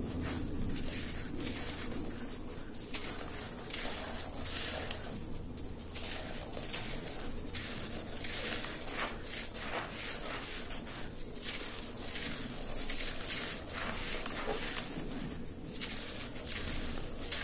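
Dry red dirt clods crumbling and crunching under fingers, with loose gritty soil rubbed and scraped against the floor and grains trickling from the hands. The crackling is irregular and continuous, with no steady rhythm.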